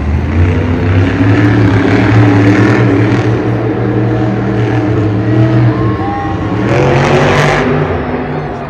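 Grave Digger monster truck's supercharged V8 revving hard as it drives over dirt jumps, the engine pitch rising and falling with the throttle. A brief louder surge comes about seven seconds in.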